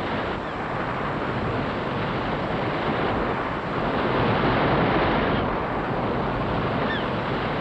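Wind and a rough sea: a steady rushing noise of wind and breaking waves, swelling slightly around the middle.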